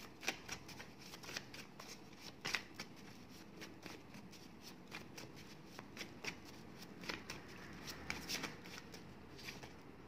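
A small deck of paper word cards being shuffled by hand: a faint, irregular run of quick soft clicks as the cards slide and tap together, a few louder ones along the way.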